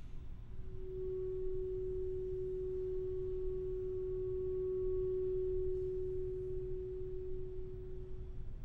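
Clarinet holding a single long, steady note, which starts about half a second in and stops shortly before the end.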